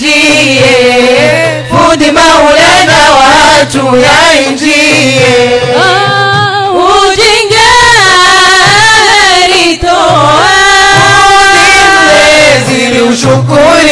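A group of women singing a devotional Mawlid chant together into microphones, loud and amplified, the sung line wavering and sliding between notes without a break.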